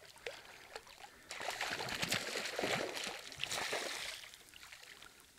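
Surf washing in on the beach: a rush of water swells up about a second in, lasts about three seconds and fades away.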